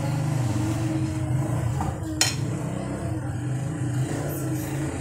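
A metal serving spoon clinks once sharply against a plate as vegetables are served, over a steady low background hum.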